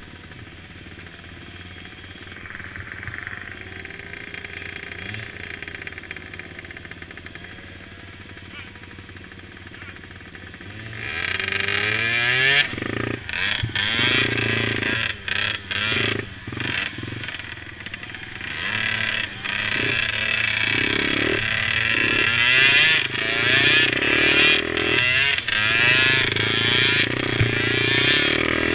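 Youth mini quad (ATV) engines racing: faint engine sound for about the first ten seconds, then the engines get much louder, revving high with rising pitch and repeated quick drops and pickups of throttle.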